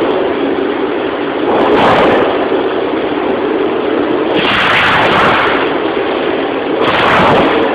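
Dual-column band saw cutting through a 100 mm stainless steel 304 bar: a steady machine noise with a held hum, and a louder hissing surge every two to three seconds.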